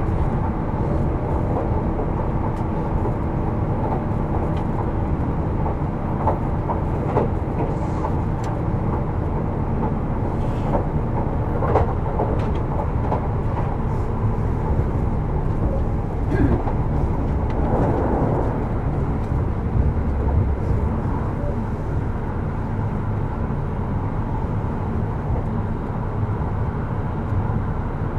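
Running sound of a Kintetsu 12200-series train heard from inside its motor car Mo 12051: a steady rumble of wheels on rail and traction motors while the train runs along, with scattered clicks and knocks.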